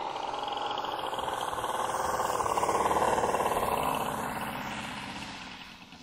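Saito FG-19 R3 three-cylinder four-stroke gasoline radial engine of a large radio-controlled model plane, heard in flight through its collector exhaust. It passes by, growing louder to a peak about halfway through and then fading away.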